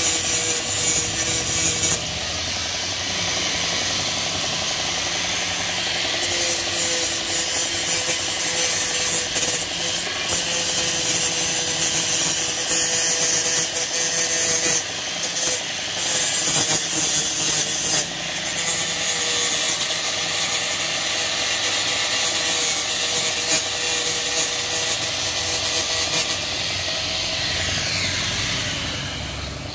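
Steel tractor wheel disc being rubbed down by hand with an abrasive, in repeated scraping strokes, to prepare it for paint. A steady mechanical hum runs underneath.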